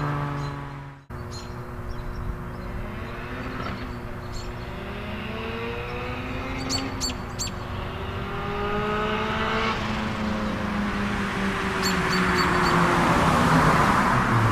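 Turbocharged hatchback's engine running through a new 2¼-inch exhaust, its pitch climbing under acceleration and dropping back several times, with a rising rush of noise near the end. A few light clicks sound along the way.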